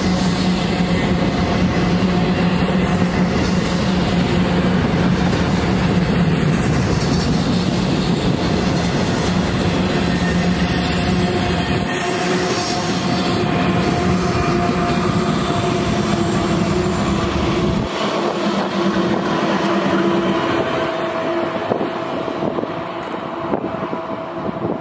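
BNSF double-stack intermodal freight train rolling past, a loud, steady rumble and clatter of wheels on rail. Its trailing pair of diesel locomotives passes partway through, and their low engine drone drops away about three-quarters of the way in. The sound then fades near the end as the train's tail moves off.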